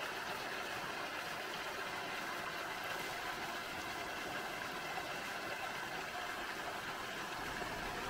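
Small waterfall pouring into a rocky pool: a steady rush and splash of falling water.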